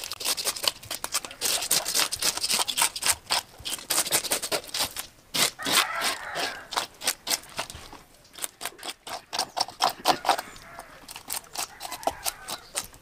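A blade scraping the scales off a snakehead fish against wet concrete: rapid crackling scrape strokes, several a second, with a couple of brief pauses.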